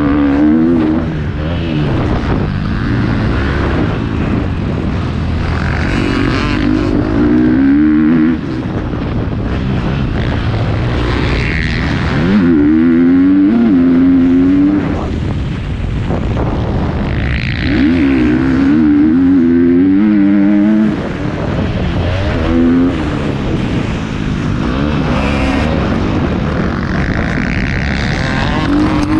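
Motocross bike engine heard from onboard the bike, revving hard and backing off over and over as the rider accelerates out of turns and rolls off the throttle. Pitch climbs in repeated surges, with a steady rush of wind and engine noise underneath.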